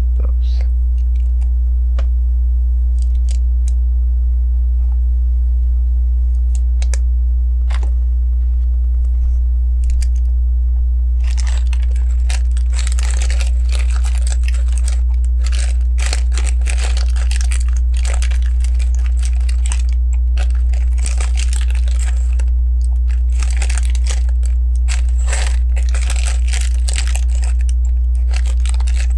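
Plastic LEGO pieces being handled: scattered single clicks at first, then from about a third of the way in a busy rattling and rustling as loose pieces are sifted and picked out. A steady low hum runs underneath and is the loudest thing.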